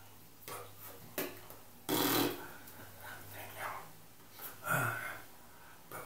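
A man's voice in short bursts of speech, with a loud breathy burst about two seconds in.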